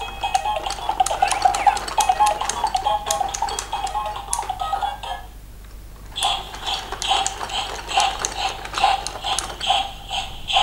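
Fisher-Price block-carrying toy train playing its electronic tune and sound effects as it is pushed along, with plastic clicking and rattling from the moving toy. A little past halfway the tune stops briefly, then a new pattern of quick bright notes, about three a second, starts.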